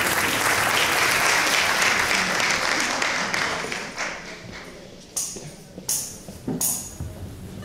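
Audience applause, full at first and dying away over about four seconds. Near the end come three short, sharp, high rattles, a little under a second apart.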